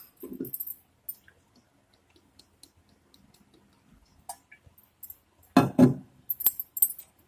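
Scattered light clicks and metallic clinks of utensils against a steel kadhai holding mustard oil, with a louder thump about six seconds in.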